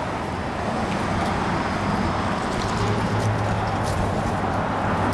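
Steady road traffic noise with a low engine hum that grows louder about three seconds in.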